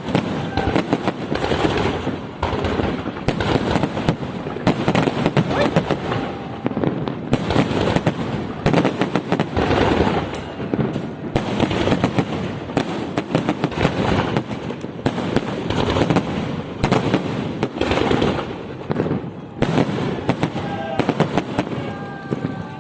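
Fireworks salute: a dense, continuous barrage of bangs and crackling from bursting shells, many reports a second, with no let-up.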